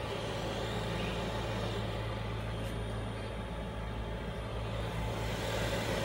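Cheap 12V 5 kW diesel air heater running steadily in its shutdown cycle after being switched off: its fan keeps turning with an even hum, a fairly loud run-on that clears and cools the heater before it stops.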